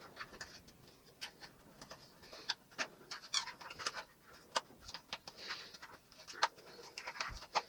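Faint, scattered small clicks and short rustles of a toy box and its packaging being handled and opened.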